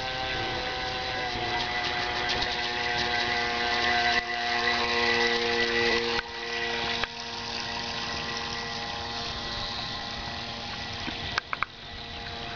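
Electric RC model speedboat running under way: its Kyosho AP-29-type motor and drive make a steady whine of several tones over water noise, shifting in pitch as the boat passes close. The owner reports a badly vibrating drive shaft on this model. A few sharp clicks come near the end.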